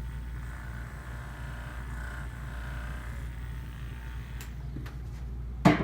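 Steady low hum, then near the end a single sharp clunk from the chiropractic adjusting table, as its drop mechanism is handled.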